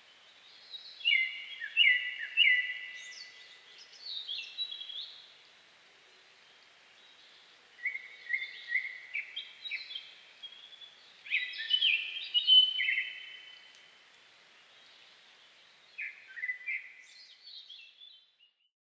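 Songbirds singing in a forest: clear whistled phrases of short repeated notes, each phrase lasting one to three seconds, with pauses between them. The song fades out near the end.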